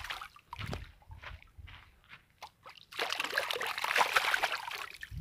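Water splashing and sloshing in the shallows as a fishing net holding a fish is hauled in by hand: a few short splashes, then a denser stretch of splashing about three seconds in.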